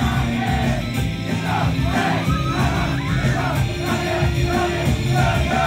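Live idol-pop song: female voices singing over a loud rock-style backing track, with shouts mixed in.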